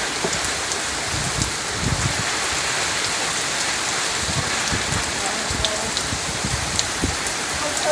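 Heavy rain pouring steadily from a tropical-storm squall, with scattered sharp drop ticks and irregular low rumbles of wind gusting on the microphone.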